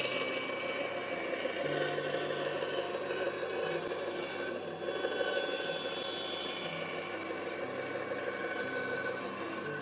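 Full Boar band saw running, its blade cutting freehand curves through a wooden board, with a steady rasping of the wood against the blade as it is pushed round. The fairly thick blade is being forced round the curve, hard enough to scorch the outside edge of the cut.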